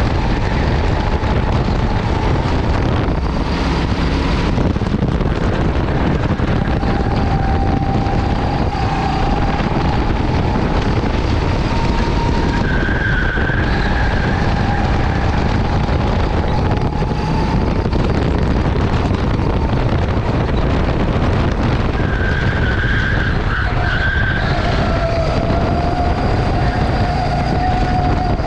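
Go-kart engine running on track, its pitch rising and falling with throttle and speed, over a loud rushing noise. Short high squeals come twice, near the middle and again toward the end.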